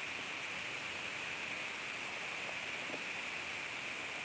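Steady background hiss with no clear event in it, the noise floor of the live stream's audio.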